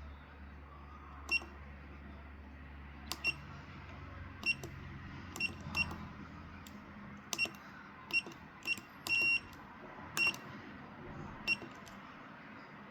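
Fusion splicer keypad beeping as its menu buttons are pressed: about fifteen short, high beeps at uneven intervals, one held a little longer about nine seconds in, while the fiber mode setting is being switched from single mode to multi-mode. A faint low hum lies underneath.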